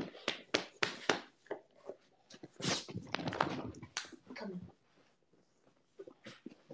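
Scuffling and sharp knocks from a large dog jumping up and scrambling about on the floor close to the microphone: several quick knocks in the first second, then a longer rustling scuffle in the middle, and a few more knocks near the end.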